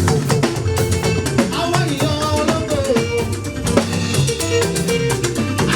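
Upbeat live band music for a church hymn, with drum kit and guitar playing a steady, dense beat.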